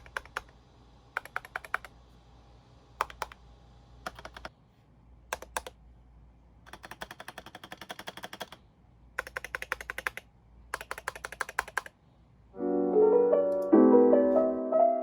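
Typing on a GMMK Pro mechanical keyboard with Gazzew Boba U4T tactile switches: short bursts of key clacks, several of them longer runs of rapid keystrokes. Piano music comes in near the end.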